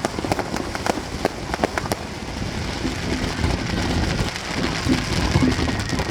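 Fireworks crackling: a dense run of sharp crackles through the first two seconds, thinning into a steady rain-like fizz.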